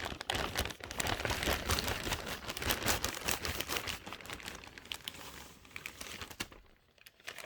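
Packaging crinkling and crackling in dense, irregular bursts as a mail order is unwrapped by hand, easing off near the end.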